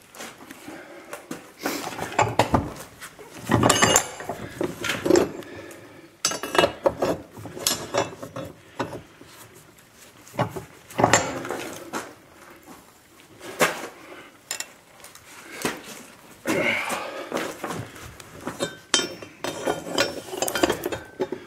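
Half-inch steel rebar clamped in a bench vise being bent with a steel bending bar: irregular metallic clanks, clinks and scrapes as the bar, rebar and vise knock together, coming in bunches every few seconds.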